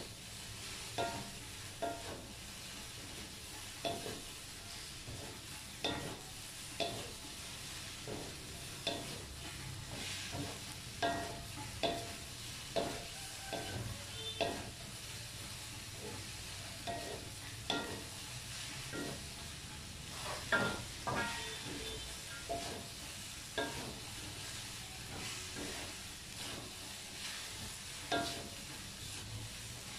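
Sliced okra sizzling in a hot oiled pan while being stir-fried, with a wooden spatula scraping and knocking against the pan about once a second.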